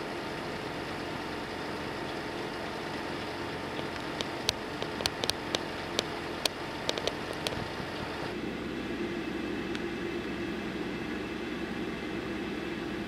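Steady drone of machinery and traffic around a shipyard dock, with a low hum. A scatter of about a dozen sharp knocks comes in the middle. About two-thirds of the way through, the drone turns duller and lower.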